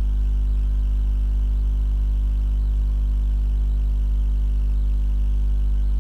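Steady low electrical hum with a buzzy stack of overtones.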